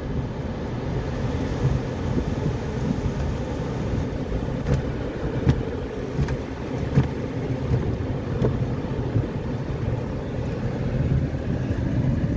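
Automatic car wash heard from inside the car's cabin: cloth strips sweeping and slapping over the body and water spraying on the glass. It makes a steady low rumble and wash of noise, with a few sharp knocks around the middle.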